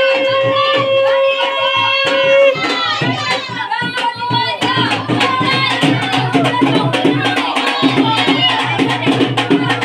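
Festive Indian music with drums and singing. A long held note stops about two and a half seconds in, and fast drumming and voices go on after it.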